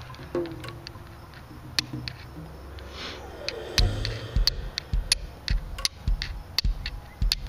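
Flint and steel being struck to throw sparks onto char cloth: sharp scraping clicks, a few at first, then a quick run of about two to three strikes a second from about halfway in.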